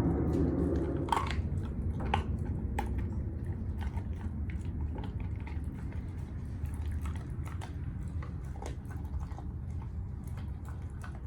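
A German Shepherd chewing a raw bone: irregular crunching and cracking clicks, with a few louder cracks in the first three seconds.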